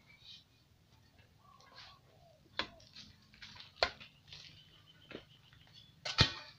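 A long-handled digging tool striking a hard earthen termite mound: three sharp strikes, the loudest near the end, with a weaker knock and softer scraping between.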